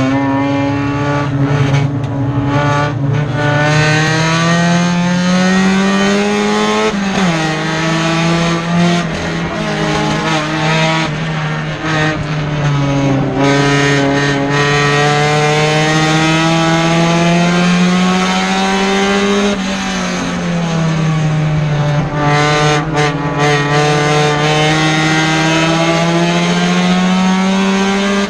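Four-cylinder Mini Stock race car engine at racing speed, heard from inside the cockpit. Its pitch climbs slowly for several seconds at a time and falls off sharply a few times, with a steady rush of road and tire noise underneath.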